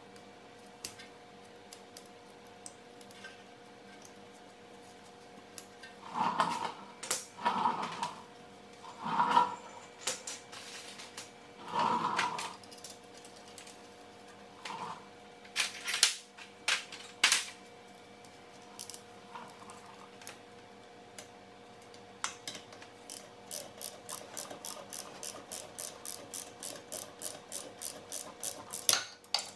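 Rear brake caliper being worked into place over the rotor with several metallic scrapes and clunks. Later comes a ratchet wrench clicking quickly and evenly, about four clicks a second, as a caliper bolt is run in.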